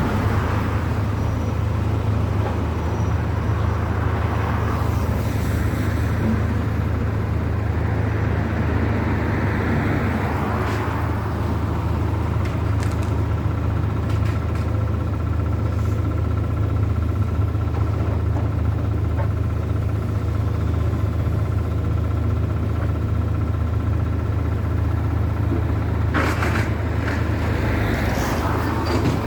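Road traffic: cars passing by, each swelling and fading, over a steady low rumble.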